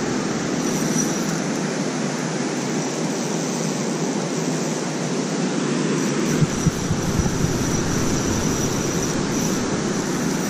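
Steady rush of water pouring through a dam spillway, even and unbroken, with a few low thumps about six to seven seconds in.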